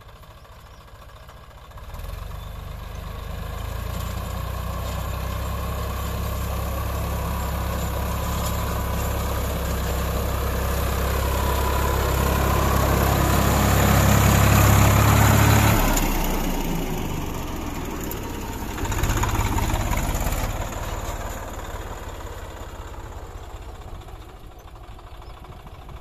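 Swaraj 960 FE tractor's diesel engine running under load while tilling a field. It grows louder about two seconds in as the tractor comes close and is loudest a little past the middle. It drops off suddenly, rises briefly again, then fades as the tractor moves away.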